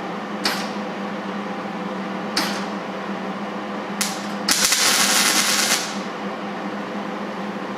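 MIG welder tacking a sheet-metal patch: three short bursts of arc about two seconds apart, then a longer, louder weld of about a second, over a steady hum.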